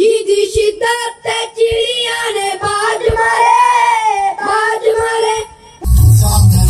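A child's solo voice singing unaccompanied into a microphone, holding long, wavering notes. Near the end it cuts sharply to loud recorded music with a heavy bass beat.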